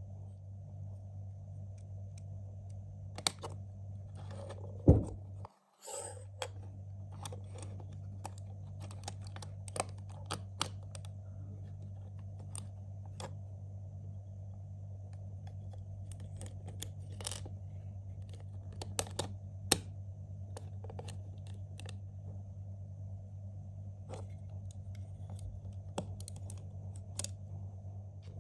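LEGO Technic plastic parts clicking, snapping and rattling as they are fitted together by hand. The clicks are irregular and scattered, with one loud snap about five seconds in, over a steady low hum.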